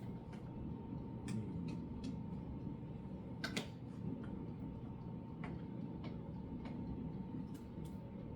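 Scattered light clicks and taps of kitchen utensils and containers being handled while seasoning tomato sauce, irregular and spaced about a second apart, the sharpest about three and a half seconds in, over a steady faint hum.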